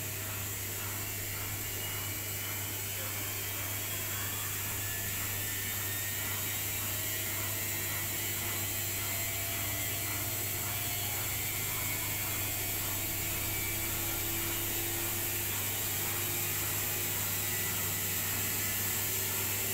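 Bosch WAE20462TR front-loading washing machine in its final spin: the motor and drum run with a steady hum and a faint repeating swish about twice a second. A whine slowly rises in pitch and the sound grows louder as the drum speeds up.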